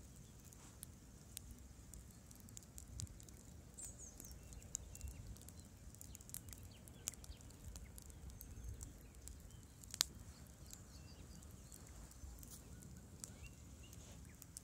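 Wood campfire crackling: irregular sharp pops and ticks, with one louder snap about ten seconds in.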